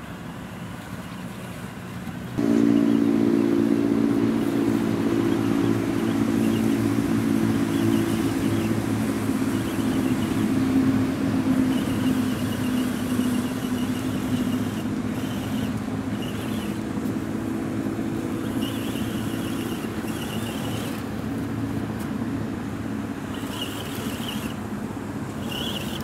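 A steady engine-like drone starts abruptly about two seconds in and runs on, slowly fading. Short high-pitched whines come and go over it.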